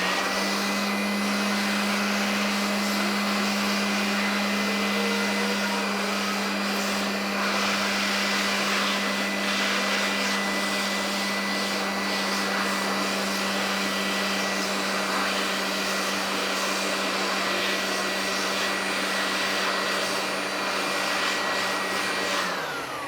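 Electric air blower running steadily, blowing dust out of a CPU cooler fan and heatsink, with a steady motor whine and hum; it winds down with falling pitch near the end.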